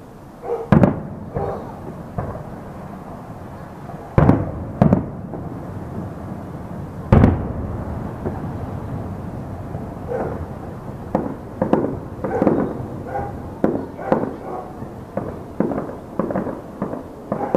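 Distant aerial fireworks bursting: four heavy booms in the first eight seconds, then a quicker run of lighter bangs, about two a second.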